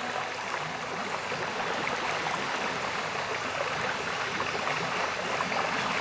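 Waterfall's steady rush of falling water, an even roar with no other sound over it.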